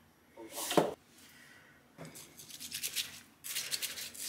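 Chopsticks stirring rice in a stainless steel bowl: a fast run of scratchy rubbing strokes that starts about two seconds in and gets busier towards the end. Just before a second in there is one short, louder sound.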